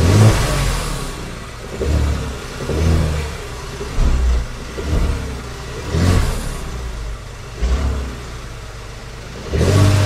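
Genesis G70's 3.3-litre turbo V6 revved in short blips, about eight in a row roughly a second apart, with a knocking noise that shows under revving. The knock was first blamed on the transmission but later traced to a crankshaft bearing.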